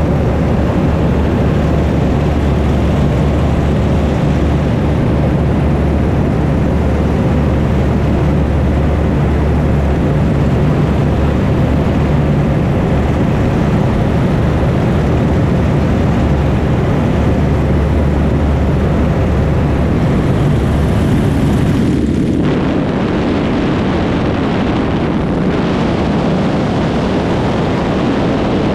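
A steady low engine drone under loud, rushing noise. About 22 seconds in, the higher hiss briefly drops out and the sound changes character.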